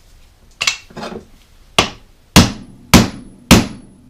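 Hammer blows driving a pinion bearing race into a GM 8.25-inch IFS differential housing: sharp metallic strikes with a short ring, two lighter taps first, then a steady series of harder blows about every half second.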